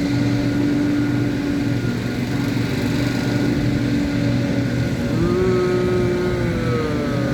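Small petrol leaf blower running steadily. About five seconds in, a second engine tone comes in and glides downward.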